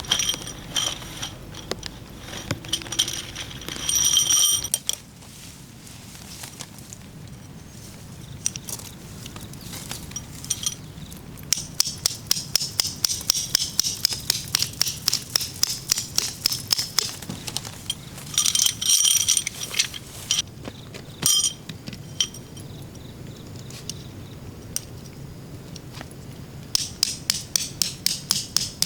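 Runs of sharp metallic taps, about three or four a second, with two brief ringing clinks, one a few seconds in and one about two-thirds of the way through.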